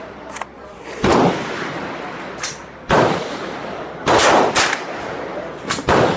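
Gunshots on a shooting range: about five loud shots at irregular intervals, two of them close together just past the middle, with fainter shots between them.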